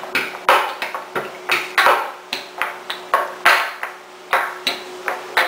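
Wooden rolling pins knocking and rolling on a wooden tabletop as luchi dough is rolled out: an uneven run of sharp clacks, about two to three a second.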